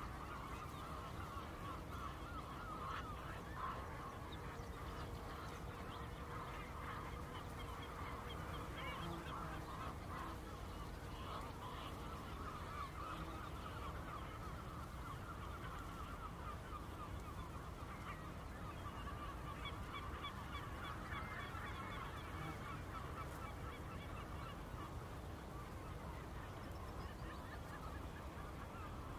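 A large flock of geese calling continuously, a dense chorus of overlapping honks, over a steady low background rumble of wind or water on the Wadden Sea shore.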